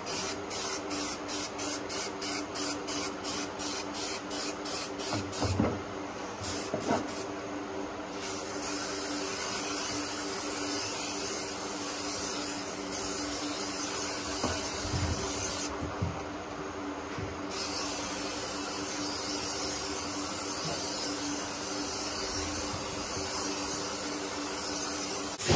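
Spray adhesive hissing as it is sprayed on: the first several seconds in short, even spurts about three a second, then a long steady spray with a brief break about two-thirds of the way through.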